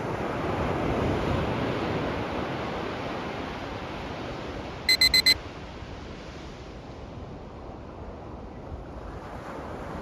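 Ocean waves washing ashore, swelling about a second in. About five seconds in, a countdown timer alarm sounds four quick, high beeps as the timer reaches zero.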